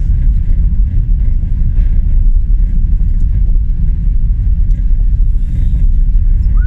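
Steady low rumble of a van's engine and tyres heard from inside the cab, driving slowly in second gear over a snow-covered road.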